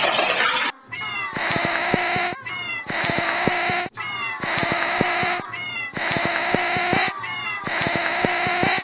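A domestic cat yowling: about five long, drawn-out meows at even spacing, each opening with a quick slide in pitch before holding a steady note.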